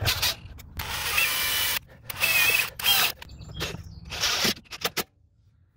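Cordless impact driver running in a series of short bursts, the longest about a second, driving screws that fasten the plastic body cladding to the lower door frame; it stops about a second before the end.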